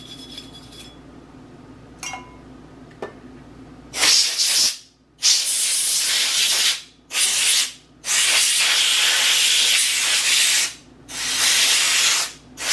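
Aerosol can of gun-cleaning spray hissing in about six bursts, from half a second to nearly three seconds long, beginning about four seconds in; a couple of faint clicks come before it.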